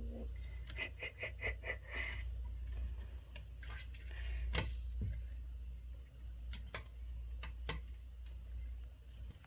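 Kittens playing, heard as scattered light clicks, taps and scrabbles, with a quick run of short high squeaks about a second in, over the steady low hum of the boiler room.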